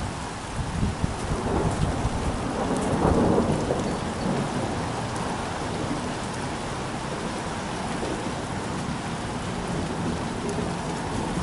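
Steady rain with a roll of thunder that builds about a second in, peaks around three seconds and fades away, leaving the rain.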